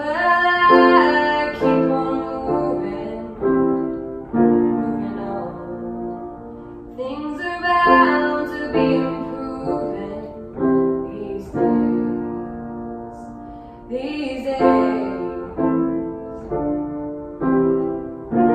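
Grand piano played in a steady run of chords, with a woman's voice singing a sliding phrase three times, about seven seconds apart.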